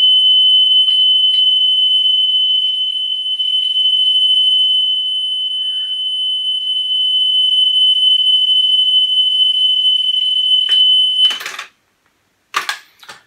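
Steady 3 kHz test tone played back by a Pioneer CT-W205R cassette deck during head azimuth adjustment, its loudness swelling and dipping a little as the screw is turned to get the tone as bright as possible. The tone cuts off suddenly about eleven seconds in, followed by a couple of clicks near the end.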